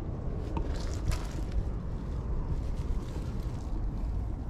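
Low, steady wind rumble on the microphone, with a few faint short rustles or clicks about a second in.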